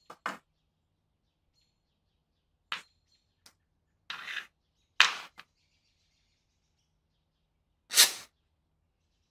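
Short, separate clicks and scrapes of small metal lighter parts and screws being handled, about eight in all, the loudest about five seconds in and again near the end.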